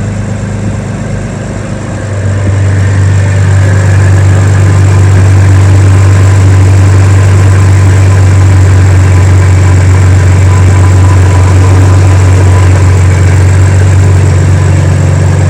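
BMW M4's S55 twin-turbo straight-six engine running steadily, getting louder about two seconds in and then holding. It is being run after a PCV repair that, as it turns out, has not cured its whistling noise; a complete tappet cover is thought to be needed.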